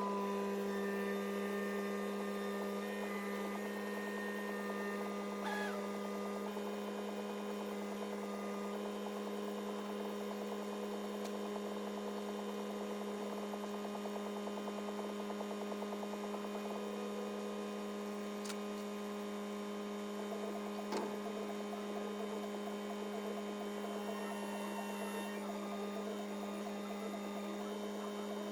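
A steady electrical or machine hum at one constant pitch, with a few faint clicks.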